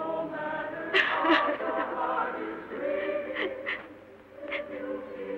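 Soft film score carried by a wordless choir holding sustained chords, with a few short, sharp high accents.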